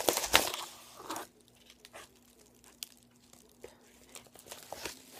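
Brown paper mailer envelope being torn open and crinkled in the hands, loudest in the first second or so, then quieter scattered rustles and clicks as it is handled.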